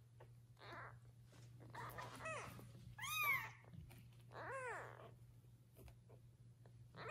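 Very young kittens mewing: several short, high cries that rise and fall in pitch, coming about a second apart, the loudest about three seconds in.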